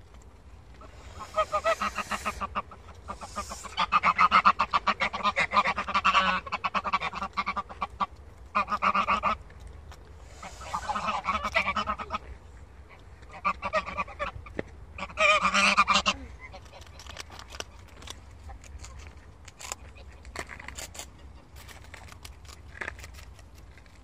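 White domestic geese honking in about six loud bouts of rapid, pulsed calls through the first two-thirds; the last third is quieter, with scattered faint clicks.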